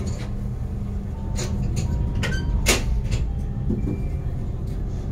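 Steady low rumble of a river boat's engines heard on board while under way, with a handful of sharp clicks and knocks near the middle.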